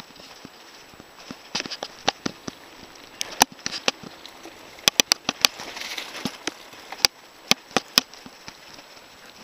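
Mountain bike rattling and clicking as it rolls over a bumpy dirt trail, with a steady hiss of tyres on soil. The sharp knocks come irregularly, several close together about five seconds in.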